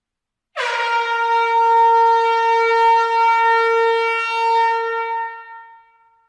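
Air horn sounding one long, steady blast that starts abruptly about half a second in, holds for about five seconds, then fades away.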